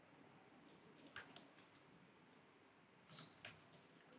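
Near silence with a few faint computer mouse clicks, a couple about a second in and a small cluster around three seconds in.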